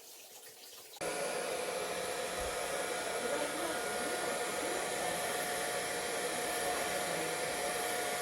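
Small electric motor blowing air with a steady whine, like a running hair dryer. It switches on abruptly about a second in and runs evenly until it cuts off at the end.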